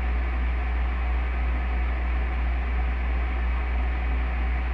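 Steady low hum with an even hiss underneath: unchanging background noise with no distinct event.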